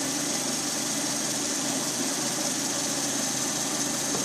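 A Lada Priora's 1.6-litre 16-valve VAZ-21126 four-cylinder engine, warmed up and idling steadily. It runs evenly with no piston knock after repair.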